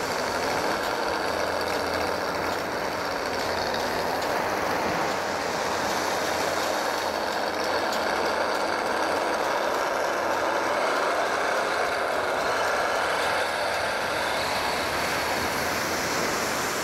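Steady rushing of surf breaking on a sandy beach, swelling slightly in places, mixed with the running noise of a radio-controlled Tamiya Monster Beetle buggy driving over the sand.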